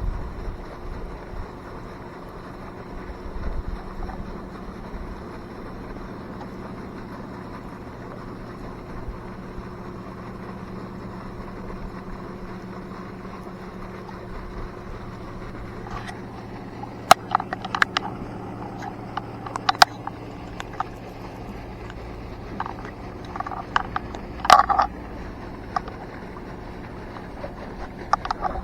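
A boat's motor running with a steady low hum. In the last dozen seconds it is joined by sharp clicks and knocks, several of them loud.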